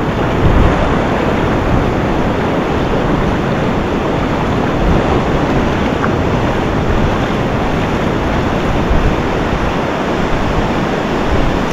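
Surf washing up on a sandy beach in a steady rush, with wind buffeting the microphone.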